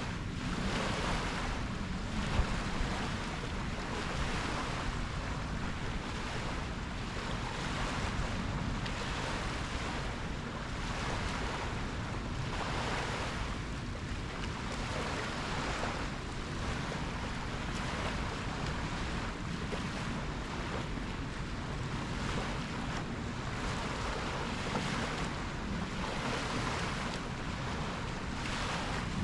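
Ocean waves breaking and washing in, the surf hiss swelling every few seconds, over a steady low rumble of wind buffeting the microphone.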